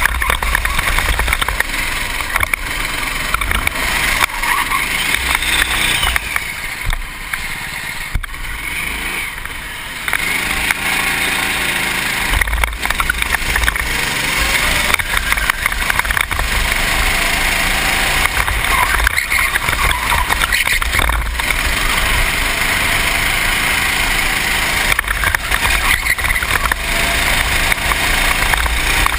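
Racing kart engine at full race pace heard from on board, its pitch rising and falling through the corners. It eases off for a few seconds about a quarter of the way in, then pulls hard again. Wind noise on the microphone adds a low rumble throughout.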